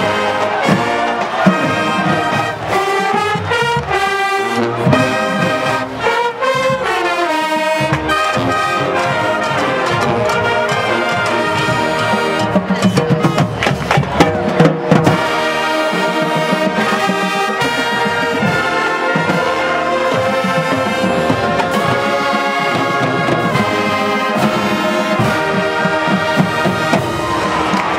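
University marching band playing a loud brass tune, trumpets and sousaphones with saxophones and drums, holding full chords that move from note to note. A short run of sharp, loud hits comes about 13 to 15 seconds in.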